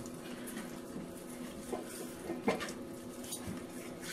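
Quiet handling of raw beef short ribs in a cast-iron skillet as hands rub in oil and seasoning, with a few brief soft knocks and rustles about two seconds in, over a steady low hum.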